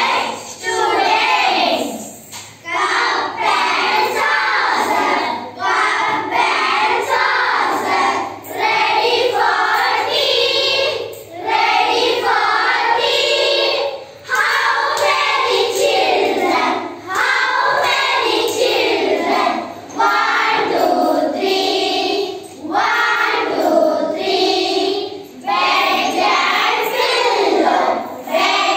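A class of young schoolchildren singing an English action poem together in unison, line by line with brief pauses between phrases.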